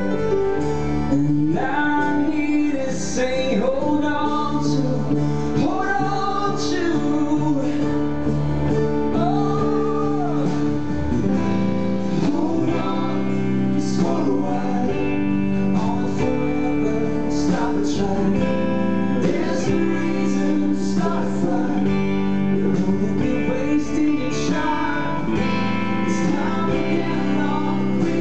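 A live pop-rock band playing: a male lead singer sings over electric guitar, bass guitar, keyboard and drums, with regular cymbal hits.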